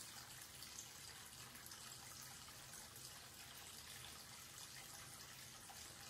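Tap water pouring in a steady stream from a wall-mounted spout into a washbasin and swirling down the open drain: a faint, even splashing hiss.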